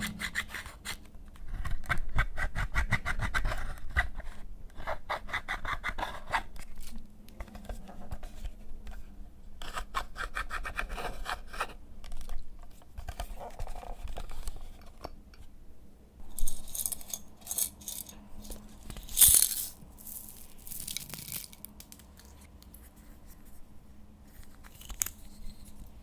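Slime being kneaded and squeezed by hand, with runs of quick crackling pops from trapped air, then a few louder sticky tearing rasps as it is pulled apart.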